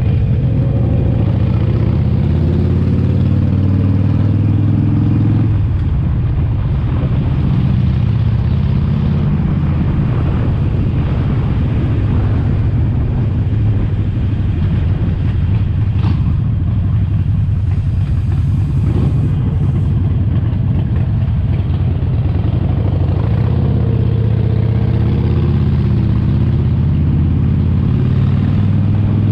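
Harley-Davidson Sportster Forty-Eight's air-cooled 1200 cc V-twin running under way while riding, a steady low rumble. The throttle eases off about five seconds in and the engine pulls harder again near the end.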